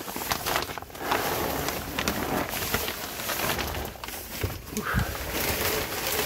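Plastic vapor barrier sheeting crinkling and rustling under a person crawling over it, with scattered crackles and scuffs.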